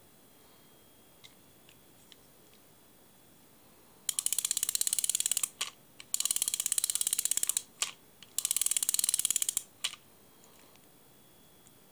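Intrepid Super Twin fixed spool fishing reel being cranked by its handle, its ratchet clicking rapidly in three runs of about a second and a half each with short pauses between.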